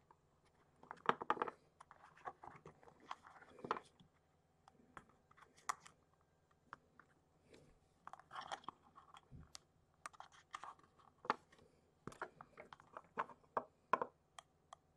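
Hands handling a small plastic model carriage body and pressing a paper strip over its roof: faint, irregular crinkles, rustles and light taps.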